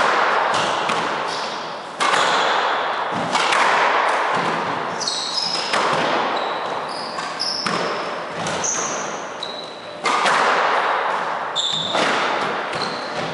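Squash rally: the ball cracking off rackets and the court walls about every one to two seconds, each hit echoing around the court, with sneakers squeaking on the hardwood floor between shots.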